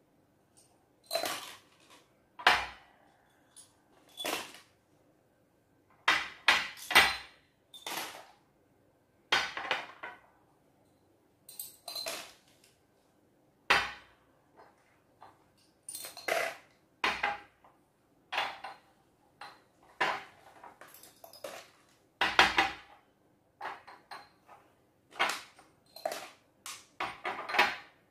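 Small glass jars being picked up, handled and set back down on a table: a string of separate clinks and knocks, about one or two a second, some sharp and glassy, as small pieces are tipped out of them.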